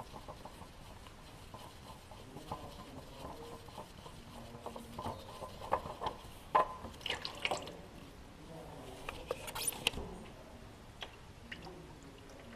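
Hand-working noises on an engine's oil filter: scattered clicks, knocks and short scrapes as a gloved hand grips and twists the filter cartridge loose, with the sharpest click about six and a half seconds in.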